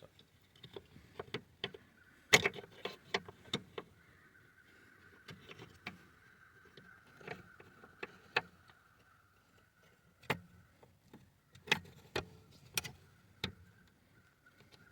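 Irregular plastic clicks, taps and rattles as a replacement accelerator pedal position sensor is handled and lined up on the pedal bracket. A faint steady high tone runs underneath from about four seconds in.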